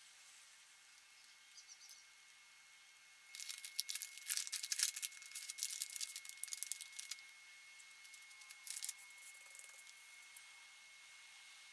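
Clear plastic wrap crinkling as hands handle it: a dense run of crackles for about four seconds, then a shorter burst of crinkling a little later.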